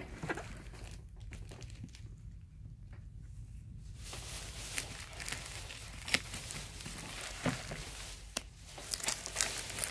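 A parcel wrapped in grey duct tape and packing tape crinkling and crackling as it is cut open with scissors, with sharp snips and clicks mostly from about four seconds in.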